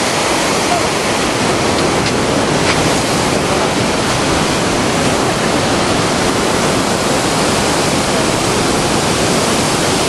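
Waterfall and white-water rapids on a mountain river, rushing steadily and loudly.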